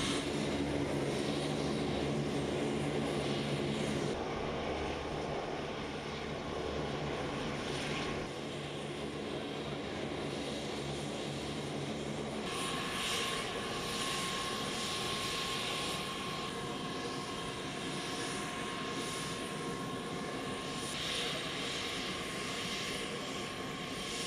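Turboprop engines of a C-130 Hercules transport plane running on the ground: a steady drone with a high whine over it. The sound changes abruptly three times.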